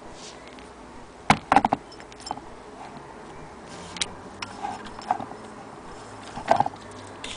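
Willcox & Gibbs hand-crank sewing machine being turned by its handwheel, the mechanism giving an uneven run of sharp clicks and ticks, loudest about a second in and again near the end.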